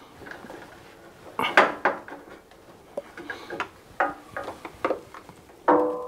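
A steel screwdriver clicking and scraping against a Bosch washing machine's heating element and its mounting as it is prised out of the tub: a string of irregular sharp metallic clicks and knocks. The element is stuck solid in its seal.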